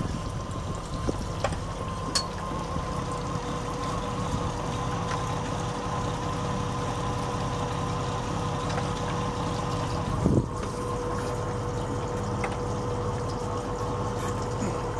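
A motor running steadily with a low hum, with water trickling and splashing. There is a single short bump about ten seconds in.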